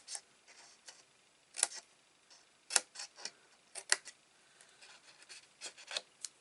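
Scissors snipping small nicks into scored cardstock: about a dozen short, sharp clicks at uneven intervals.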